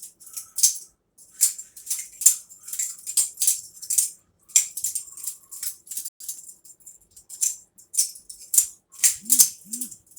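Butterfly knife (balisong) being flipped by hand: the metal handles and blade clack against each other and rattle on the pivots in a quick, uneven run of sharp clicks.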